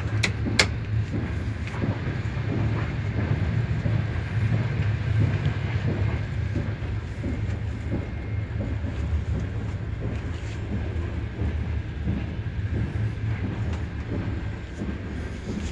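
Steady low rumble of a passenger sleeper train running, heard from inside a compartment, with a couple of sharp clicks in the first second.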